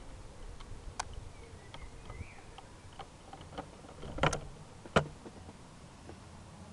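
Handling noise from a handheld camera being moved: a few sharp clicks and knocks, loudest as a short cluster about four seconds in and a single click about a second later. Faint high chirps sound in the quiet outdoor background between them.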